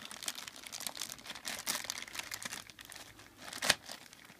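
Plastic shrink-wrap on a hardback book crinkling as hands work at it to open it: a quick run of small crackles, with one louder crackle near the end.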